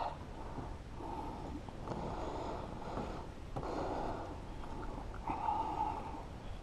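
A person breathing hard through the nose close to the microphone: four or five breaths, each about a second long.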